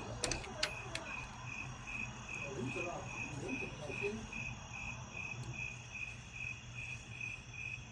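An insect chirping steadily in a regular rhythm, a short high chirp about three times a second, over a faint low hum.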